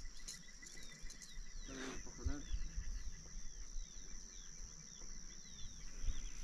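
Evening wetland wildlife chorus: many short, high, falling chirps repeating over a steady high-pitched whine. One lower, fuller animal call is heard about two seconds in.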